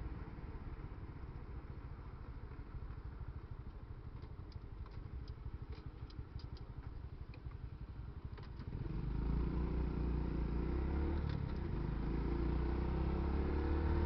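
Motorcycle engine running in traffic, picked up by a helmet-mounted microphone, with a few faint clicks partway through. About nine seconds in, the engine becomes louder and steadier.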